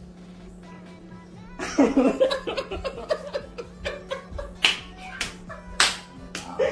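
After a quiet start, a man laughs heartily from about two seconds in, with several sharp smacks in among the laughter.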